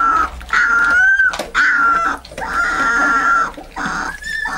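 Alaskan Malamute puppy howling: a run of about five long, high, steady-pitched calls one after another, the last a little higher.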